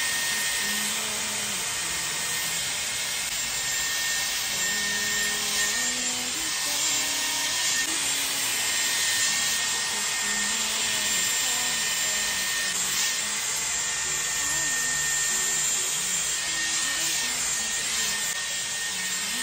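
Dyson hair dryer switched on and running steadily while styling hair: a loud, even rush of air with a thin high whine.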